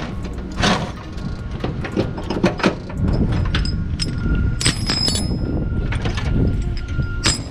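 Steel load chains and a chain binder clanking and rattling as they are pulled off a truck's headache rack, with repeated sharp metal knocks, some ringing briefly. A steady low rumble runs underneath.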